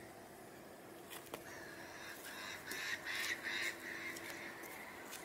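A bird calling: a run of short, repeated calls, loudest about three seconds in, with a couple of faint clicks just before.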